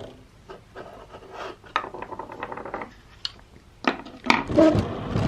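Clicks, clinks and scraping from the plastic and metal parts and circuit board of a defibrillator being handled and taken apart, irregular and busiest near the end.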